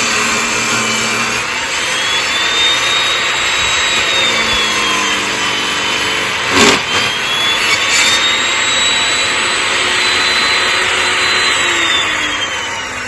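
Sawmill running and cutting a cedar log into boards, a steady engine-and-blade noise whose whine drops and rises with the load and falls away near the end. A sharp knock about six and a half seconds in.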